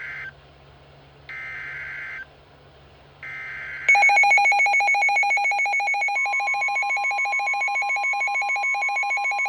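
Emergency Alert System header on NOAA Weather Radio: one-second bursts of warbling data tones (SAME codes), ending with two full bursts. About four seconds in, a WR-100 weather radio's alarm starts a loud, rapid pulsing beep. About two seconds after that, the broadcast's steady 1050 Hz warning tone joins underneath, signalling a new severe thunderstorm warning.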